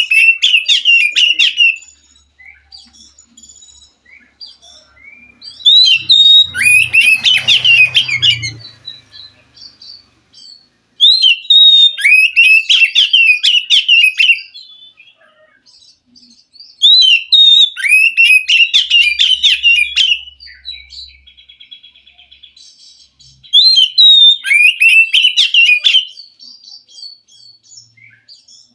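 Wild oriental magpie-robin singing loud phrases of about two to three seconds, repeated about every five to six seconds; each opens with a rising whistle and breaks into a rapid run of varied notes.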